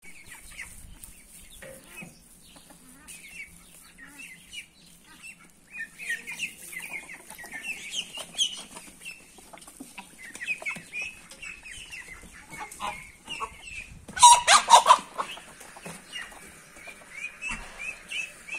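Backyard chickens clucking, with many short high peeping calls throughout, and a loud, harsh flurry of noise about fourteen seconds in.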